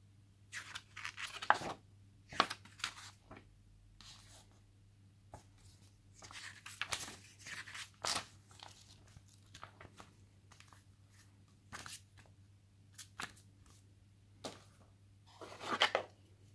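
Paper rustling in short bursts as the pages of a printed phone user manual are handled and flipped. Near the end comes a longer rustle as the mains charger and its cable are lifted out of the cardboard box.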